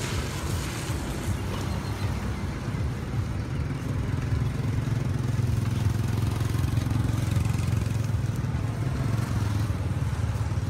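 Steady low engine rumble of street traffic, growing a little louder midway.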